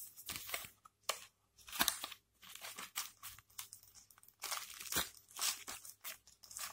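Thin paperboard product box being opened by hand: irregular rustling, scraping and crinkling as the end flap is worked open.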